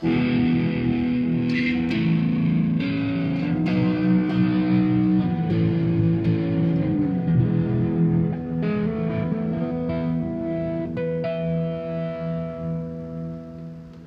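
Electric guitar played through a Marshall JVM410H all-valve amp head: a few sustained chords that change every couple of seconds, the last one left to ring out and fade near the end.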